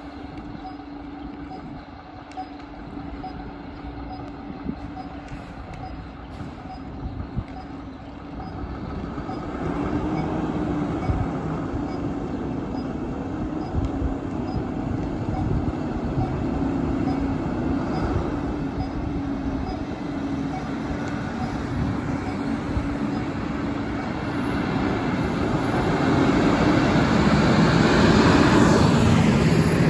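Fire trucks' diesel engines running as they pull out of the station, with a steady low hum. Faint ticking about twice a second in the first part; the engine noise swells about eight seconds in and grows loudest near the end as the Magirus turntable ladder truck drives past.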